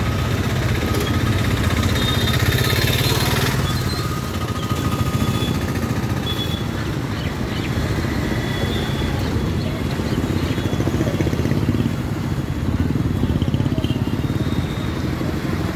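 Motorcycles and other light road traffic crossing with their engines running, a steady traffic noise.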